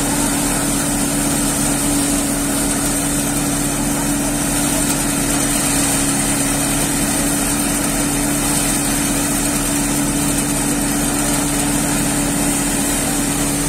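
Multi-crop paddy thresher running at a steady speed with a constant low hum, threshing rice sheaves as they are fed in.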